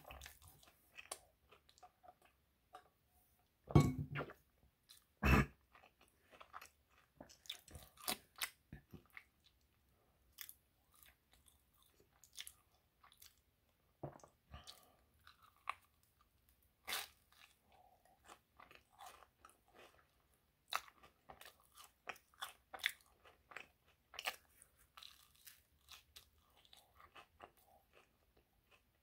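Close-up chewing and biting of an English muffin spread with peanut butter and honey: many small irregular mouth clicks, with two louder bites about four and five seconds in.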